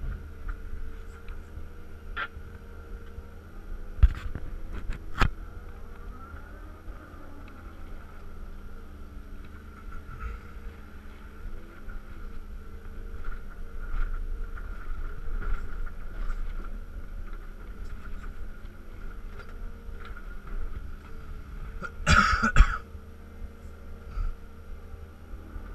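Cat 323 excavator heard from inside the cab: the engine and hydraulic pump run steadily with a high whine, the pitch shifting a little as the boom and bucket are worked. Two sharp knocks come about four and five seconds in, and a loud, short burst of noise near the end.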